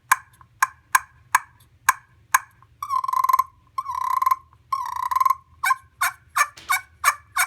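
Miniature turkey tree call, a wooden friction call played by pulling a striker across an anodized aluminum surface, making soft turkey clucks. There are about six sharp clucks, roughly two a second, then three short rolling purrs, then a quicker run of clucks.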